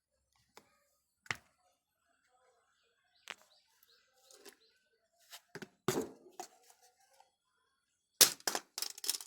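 Scattered sharp clicks and knocks of objects being handled, with a louder knock about six seconds in and a quick run of loud clicks near the end.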